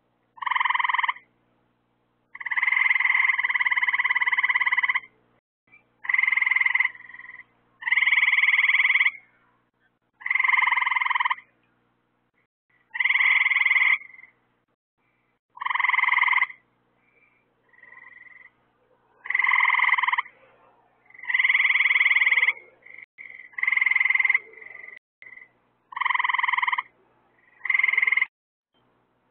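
Frogs calling at a pond at night: loud, pitched calls lasting about one to two seconds each, repeated every two to three seconds with short pauses between.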